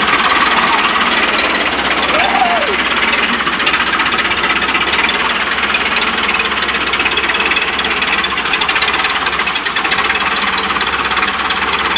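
Massey Ferguson 50C backhoe's engine running steadily at low throttle with a rapid, even clatter, while its hydraulics are being tried.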